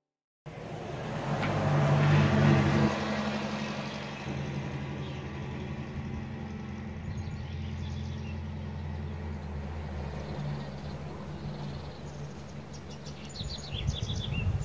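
A vehicle passes on the road, swelling to its loudest about two seconds in and then easing off, over a low steady hum. Birds chirp near the end.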